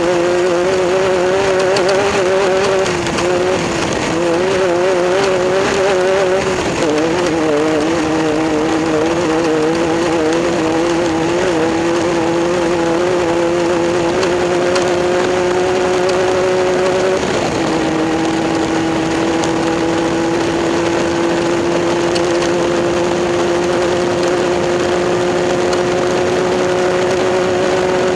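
Race car engine running hard and continuously, its pitch wavering up and down for the first several seconds, then climbing slowly, dropping suddenly about two-thirds of the way through, and climbing slowly again.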